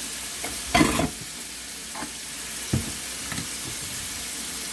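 Diced chicken breast sizzling in oil in a pot, a steady hiss, with a spatula scraping and knocking against the pot a few times, loudest about a second in.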